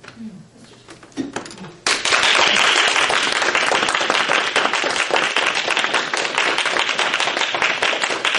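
Audience applauding, breaking out suddenly about two seconds in and continuing steadily.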